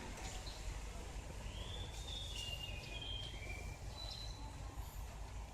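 Leafbird (murai daun) singing a short phrase of high, clear whistled notes, starting about one and a half seconds in and stepping down in pitch, over a steady low background hum.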